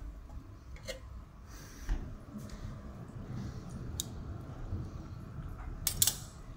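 Metal kitchen tongs clicking a few times at scattered moments as cooked squid pieces are lifted from a frying pan and laid on wraps.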